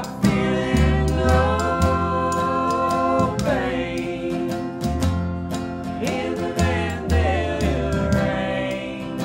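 Acoustic country band playing: strummed acoustic guitar, upright bass and lap steel, with notes that slide up and down over a steady beat.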